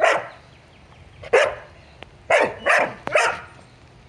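A canine barking five short, sharp barks: one at the start, one about a second later, then three in quick succession.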